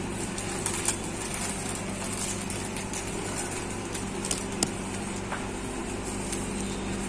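Steady low mechanical hum of a running machine, with a few faint light clicks.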